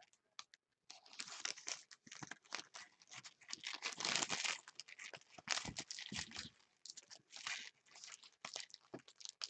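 Plastic shrink wrap on a trading-card box crinkling and tearing as it is stripped and crumpled by hand. There is an irregular crackle starting about a second in, loudest near the middle.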